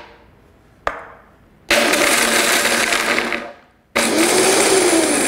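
Vitamix blender grinding whole hazelnuts into a fine meal. It runs in two bursts of a couple of seconds each with a short pause between them, after a sharp click about a second in.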